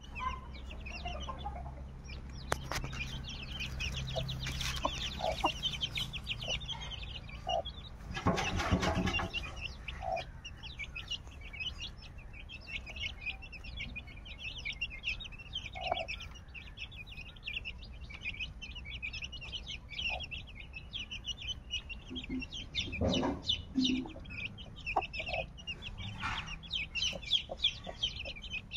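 Chicks peeping in a constant, high-pitched stream, with a hen's short clucks now and then. A brief burst of noise comes about eight seconds in.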